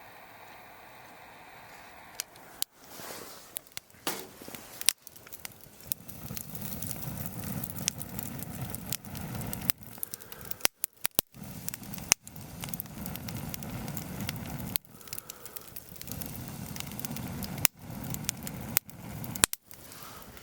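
Wood fire crackling and popping, with sharp snaps over a low rushing of flames. It comes in a series of short pieces with abrupt cuts between them, starting about two seconds in.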